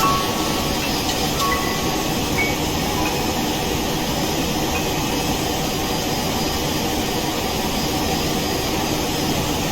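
Steady engine and airflow noise inside the cabin of a Boeing 737 in flight.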